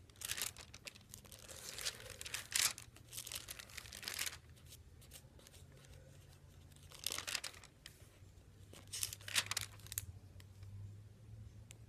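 Pages of a Bible being turned and leafed through in bursts of papery rustling, a few separate flurries, while looking for Luke 24.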